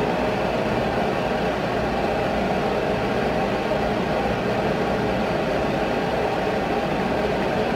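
A kitchen fan running with a steady, even whir.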